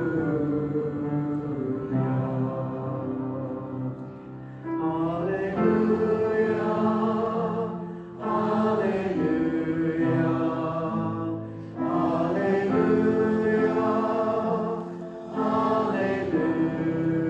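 A group of voices singing a hymn in sustained phrases of about three to four seconds, with short breaks between them.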